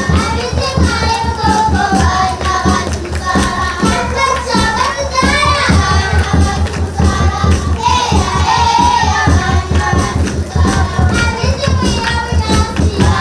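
A group of children singing a song together with rhythmic hand-clapping keeping the beat.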